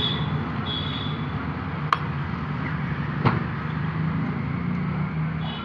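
Steady background noise and low hum with two sharp clicks, about two seconds and three seconds in.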